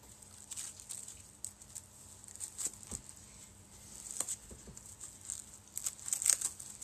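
Irregular crinkling and rustling of packaging as hands rummage in a cardboard box of 3D-printed parts, with the loudest flurry near the end.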